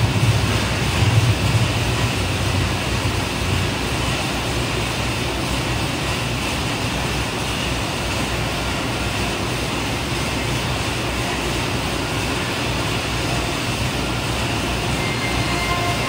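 Air bike's fan whirring steadily as it is pedalled, a constant rushing noise.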